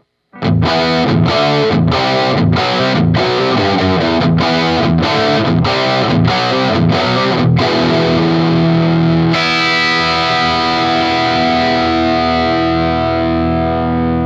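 Electric guitar played through a BOSS SD-1 Super Overdrive pedal, giving a mildly overdriven tone: chords struck in a steady rhythm with short breaks between them, then, about nine seconds in, a final chord that rings on and slowly fades.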